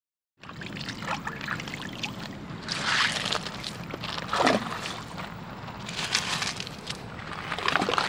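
Shallow water splashing and lapping over a pebbly shoreline, with a few louder splashes, one at a time, as the water is stirred and struck.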